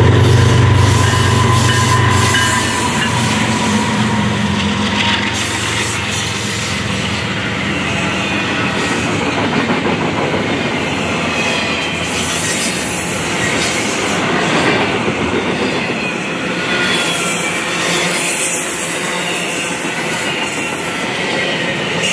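GE ES44DC diesel locomotives running past, their low engine drone fading after about three seconds. A train of double-stack intermodal well cars then rolls by with steady wheel and rail noise and thin high wheel squeals on and off.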